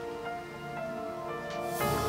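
Soft background music of sustained held notes, swelling and growing fuller with a deeper bass near the end.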